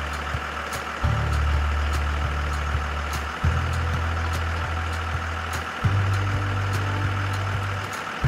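School bus engine idling steadily, its low hum shifting abruptly about every two and a half seconds, as if a short recording is repeated.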